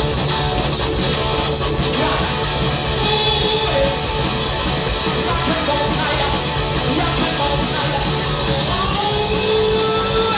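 Live rock and roll played by a band, led by electric guitar, with singing.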